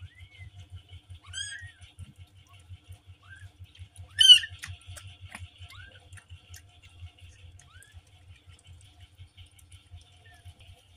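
Newborn kittens squeaking: short, thin, high mews every second or two, with one much louder squeal about four seconds in.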